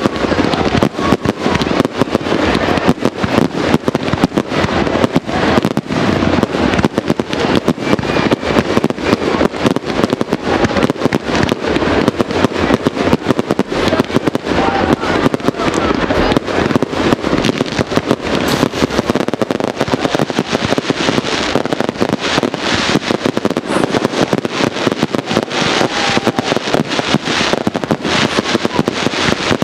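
Fireworks display: many aerial bursts going off in quick succession, a dense, unbroken stream of bangs and crackles with no let-up.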